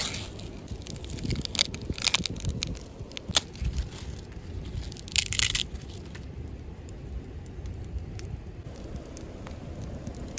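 Green husks being ripped and stripped off a fresh ear of corn by hand, in several crisp rustling tears over the first six seconds. After that only a steady low background rumble remains.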